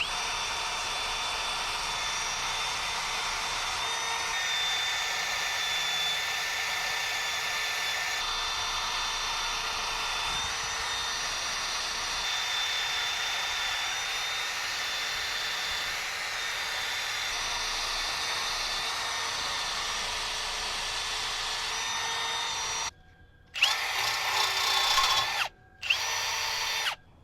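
Power drill with a cleaning wheel grinding rust and brake dust off a car's rear wheel hub surface, a steady motor whine. It runs without a break for most of the time, stops, then comes back in two short, louder bursts near the end.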